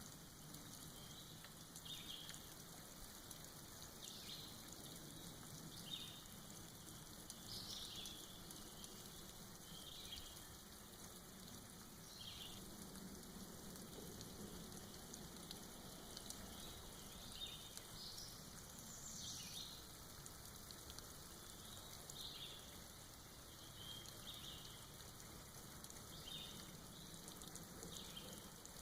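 Faint, steady patter of rain dripping off moss, with a bird giving short high chirps every second or two.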